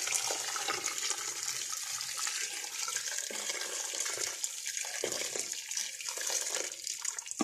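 Water poured in a steady stream from a stainless steel jug into a large stainless steel pot of goat meat and vegetables, splashing onto the meat as the pot fills, stopping abruptly at the end.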